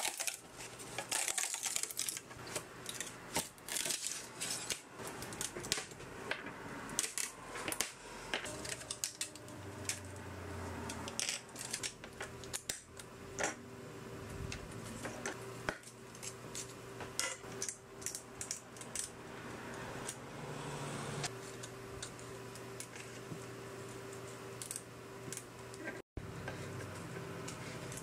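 Irregular small clicks, cracks and snaps of 3D-printed plastic parts as they are flexed off a flexible print sheet and their support material is broken and picked away. A steady low hum joins in about halfway.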